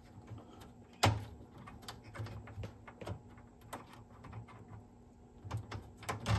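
Irregular small plastic clicks and taps from wire connectors being worked up off the circuit board of a Technics RS-BX707 cassette deck, with a sharp louder click about a second in and another near the end.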